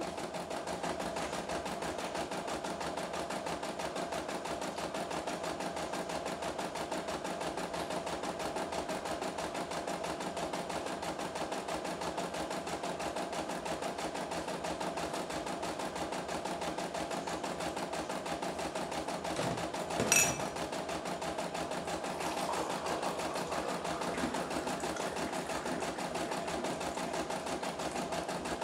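CNY E960 computerized embroidery machine stitching a design, running steadily with a fast, even needle rhythm over a steady tone. A single sharp click about two-thirds of the way through.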